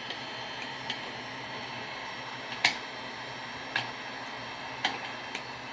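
Heat gun blowing with a steady hiss, while a flathead screwdriver works under the glued surround of a subwoofer, giving sharp clicks of metal against the speaker frame about once a second.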